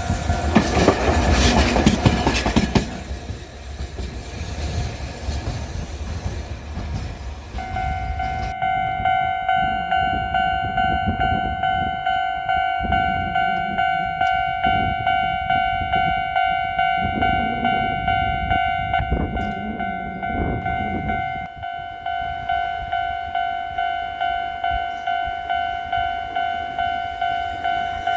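Kagoshima City Tram car 614 passing over the level crossing, rumbling and clattering for the first three seconds. From about seven seconds in, the level-crossing warning bell rings in repeated electronic 'kan-kan' strikes, about three every two seconds, with low rumbles of passing traffic beneath it in the middle.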